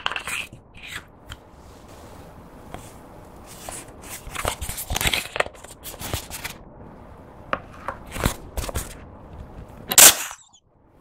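A plastic cosmetics tube being uncapped and squeezed by hand: scattered plastic clicks and crinkling crackles as the shimmery gel is pressed out, with the loudest crackle about ten seconds in as the flat tube is squeezed hard.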